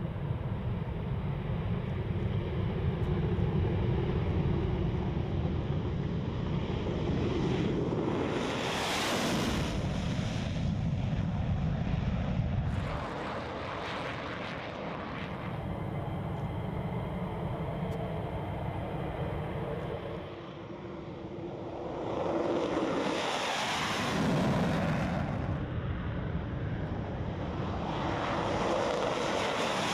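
F-16 fighter jets' engines during takeoff, a continuous jet roar that swells and fades again several times as each aircraft passes, with a short dip just after the middle where one clip changes to the next.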